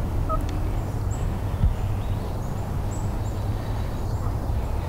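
Wild turkey gobbler gobbling, with small songbirds chirping short high notes throughout over a steady low rumble. A brief low thump comes about one and a half seconds in.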